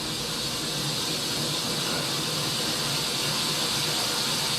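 A steady, even hiss-like noise with no clear tone or rhythm.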